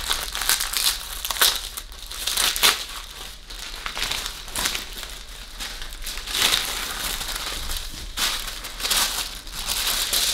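White wrapping paper crinkling and rustling in irregular bursts as it is unfolded from around a small leather handbag.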